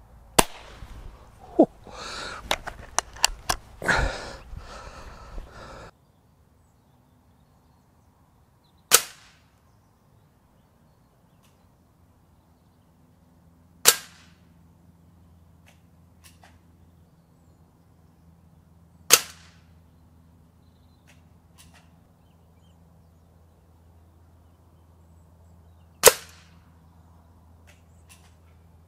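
Hatsan 25 Supercharger break-barrel spring-piston air pistol firing: a sharp shot just after the start, then a few seconds of handling clatter and clicks, then four more single shots several seconds apart.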